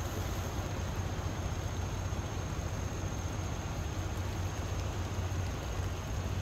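Volvo semi truck's diesel engine idling steadily: a low rumble with an even hiss and a thin steady high tone over it.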